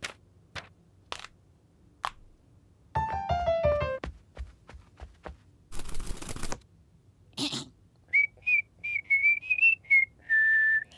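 Cartoon soundtrack: a short descending run on a toy piano, a brief rustle, then a cartoon bird whistling a quick tune of short high chirped notes that ends on one held note.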